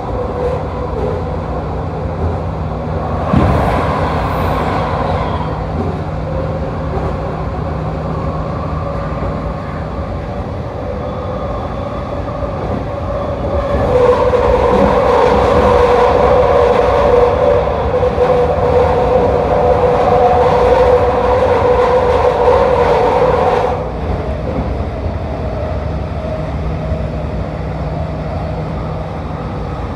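Vancouver SkyTrain Expo Line train, driven by linear induction motors, running along the track with a steady rumble and whine. A brief hiss comes a few seconds in. About halfway through, a louder stretch with a stronger whine and hiss lasts about ten seconds, then cuts off suddenly.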